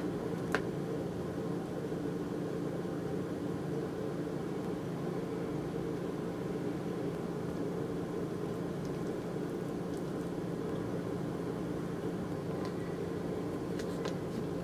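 Steady machine hum from a running kitchen appliance, with a light click about half a second in and a few faint ticks near the end from a metal spoon and fingers working a plastic rice-ball mold.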